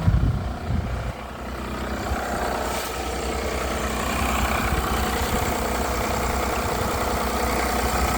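Honda J-series V6 engine on a cold start: a loud burst at the very start, then steady running with a rattling knock. The uploader puts the knock down to a leaking, failing timing belt tensioner, a noise that goes away once the engine warms up.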